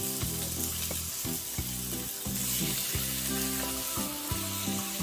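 Food sizzling as it fries in a hot pan. The sizzle starts suddenly and then keeps going steadily, over background music.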